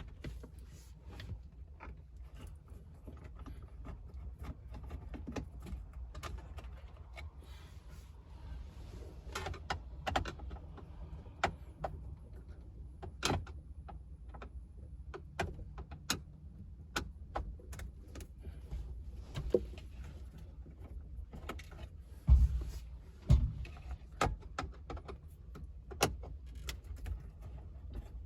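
Screws being taken out of a car dashboard's stereo mounting: scattered light clicks, ticks and small metallic clinks of tool, screws and plastic trim, with two heavier low thumps about two-thirds of the way through.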